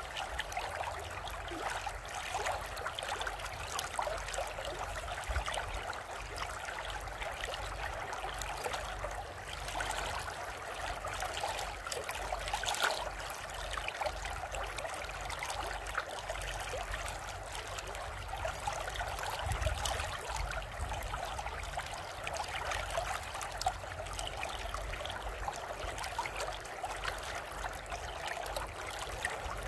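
Shallow river water rippling and lapping steadily over the stones at the bank of a fast spring-runoff river.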